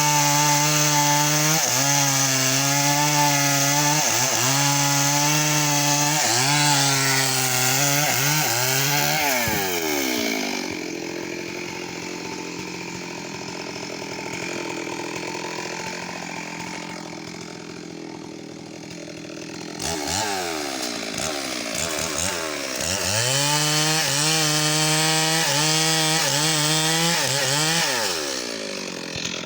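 Stihl MS 382 two-stroke chainsaw running at high revs, its pitch dipping again and again under load as it cuts into wood. About ten seconds in the engine falls away to a quieter, lower run for about ten seconds. It then revs sharply back up and cuts again, sagging in pitch near the end.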